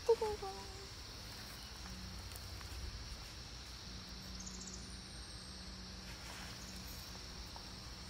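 Faint steady forest ambience: insects droning in a continuous high band, with a faint low hum beneath.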